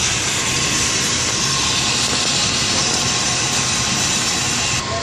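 Steady loud rushing noise with a thin steady tone running through it, easing slightly near the end; no gunshot.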